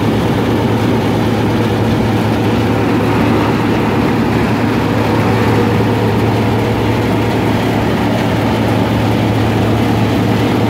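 Wheat thresher running at a steady speed: a loud, even mechanical drone with a strong low hum that holds unchanged throughout.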